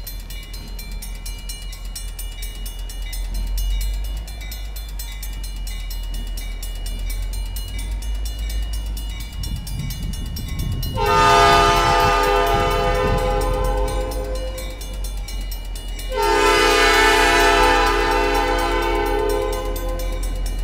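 Diesel locomotive running light, with no cars, approaching with a low engine rumble that grows from about nine seconds in. Its air horn sounds two long blasts of several notes at once, the first about eleven seconds in and the second about a second and a half after the first ends.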